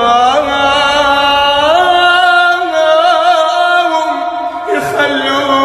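A young man singing a sad Iraqi song, holding long wordless vowel notes with wavering ornaments that step up in pitch. A new phrase begins near the end.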